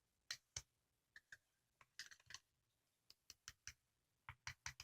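Faint, irregular clicks and taps of a stirring tool against a plastic mixing container while the slime mixture is being stirred.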